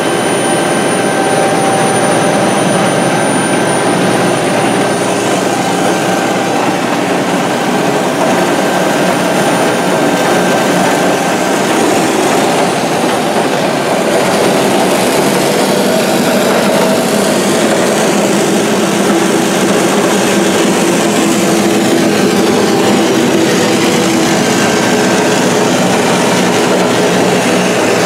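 Godwin CD500M Dri-Prime diesel-driven pump set running steadily: a loud, even engine and pump sound with a few steady tones, holding constant throughout.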